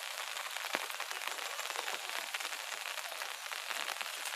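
A steady, fine crackling hiss of outdoor background noise, like light rain pattering, with one short dull thump about three-quarters of a second in.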